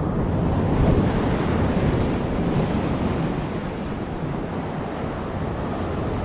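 Sea surf surging and washing through a narrow gutter between coastal rocks, swelling about a second in and easing a little after, with wind buffeting the microphone.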